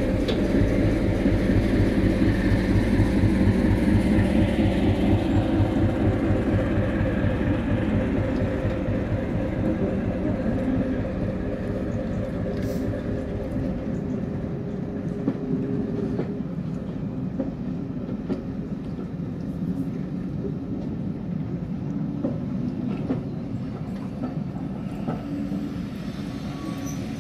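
Class 73 electro-diesel E6003 pulling away on its English Electric diesel engine, a loud, evenly pulsing beat that fades after about fourteen seconds as the locomotive draws off. Its coaches then roll past with a steady rumble and the wheels clicking over rail joints.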